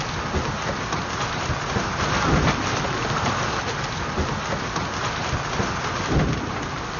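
Hailstorm: hail and rain pelting down steadily, a dense patter full of sharp knocks of stones striking hard surfaces, swelling louder twice with low rumbles.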